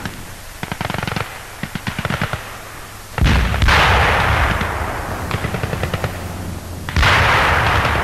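Battle sounds: rapid bursts of machine-gun fire through the first three seconds, then two heavy explosions, about three and seven seconds in, each dying away slowly.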